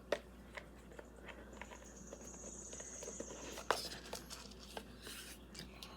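Faint handling of a small jewelry box: scattered light clicks and rustles as it is worked open, with a sharper click at the start and another a little past halfway.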